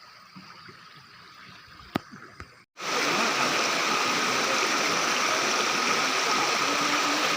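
Faint background with one sharp click about two seconds in, then after a brief dropout the loud, steady rush of a waterfall.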